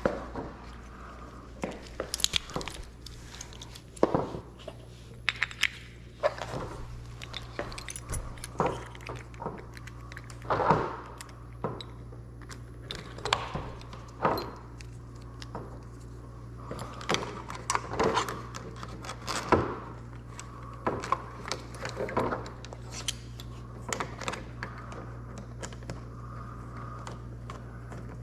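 Keys jangling and small metal lock parts and tools clicking and clinking as a door lock is rekeyed: irregular sharp taps throughout, over a steady low hum.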